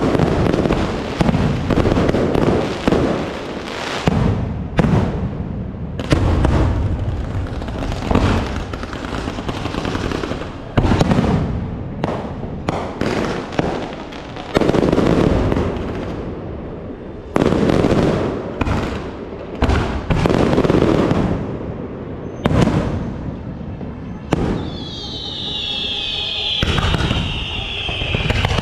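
Fireworks display: aerial shells bursting one after another, each with a crackling tail. Near the end several whistling fireworks sound together, their shrill whistles sliding down in pitch.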